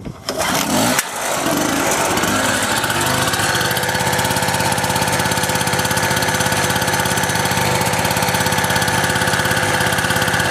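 Medusa T951 two-stroke portable petrol generator being pull-started by its recoil cord. It catches about a second in and settles into a steady run by about three seconds in.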